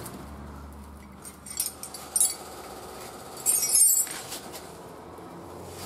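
Metal spanners clinking against each other and the concrete floor as they are handled, a few single clinks followed by a longer jangle about three and a half seconds in. A low steady hum runs underneath.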